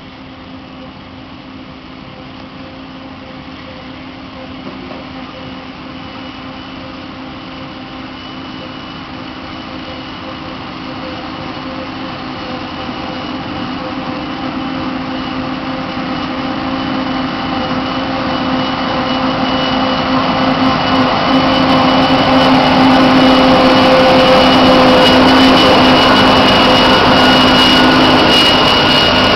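Krone BiG X 500 self-propelled forage harvester at work chopping grass, a steady machine drone with a high whine, with the engine of the truck running alongside mixed in. It grows steadily louder as the machines come closer, loudest over the last several seconds.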